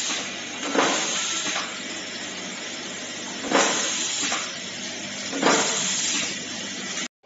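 Automatic terminal crimping machine with a vibratory bowl feeder running, a steady buzzing hiss underneath. Three crimp cycles, each a sudden burst of air hiss that fades over about a second. The sound cuts off just before the end.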